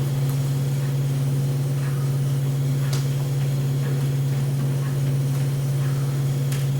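Steady low hum with a few faint overtones, with two or three faint clicks over it.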